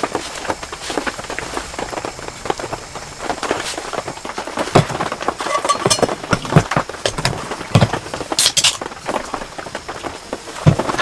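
Rain pattering on tent fabric, a dense crackle of drops, with a few sharper knocks and clinks scattered through it.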